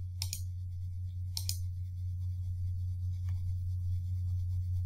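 Computer mouse clicking a few times: a click near the start and a quick pair about a second later, over a steady low electrical hum.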